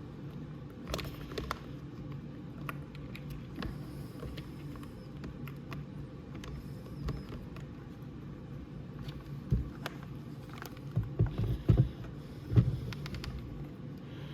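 Wires and plastic connectors of a battery wiring harness being handled and pushed into a plastic battery box: scattered small clicks and rustles, with a few louder knocks in the last few seconds, over a steady low hum.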